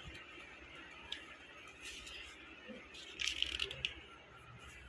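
Faint rustling and handling noise from a phone camera being moved over fabric and bedding, with a few brief scuffs about two seconds in and a denser cluster of scuffs a little after three seconds.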